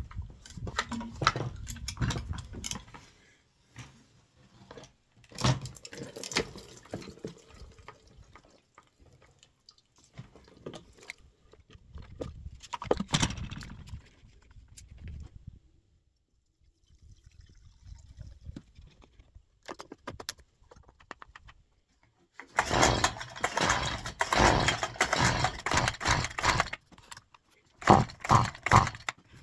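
Cap clicks, plastic handling and fuel being poured as a Stihl string trimmer's fuel tank is emptied and refilled, with a longer, louder stretch of pouring and sloshing near the end. Then a few quick pulls on the trimmer's recoil starter cord.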